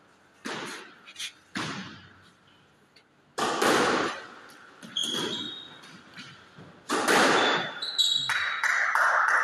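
Squash ball being struck by rackets and hitting the court walls, a series of sharp hits that echo around the enclosed court, the loudest about three and a half and seven seconds in. Short high squeaks of court shoes on the wooden floor come in between.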